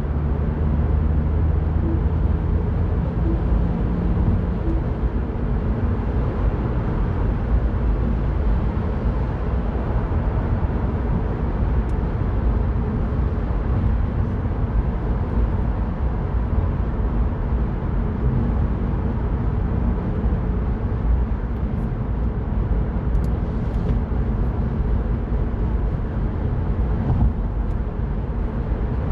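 Mini Cooper Cabrio on the move, heard from the driver's seat: engine running under a steady rush of tyre and road noise. The engine hum is stronger for the first few seconds, then sinks back into the road noise.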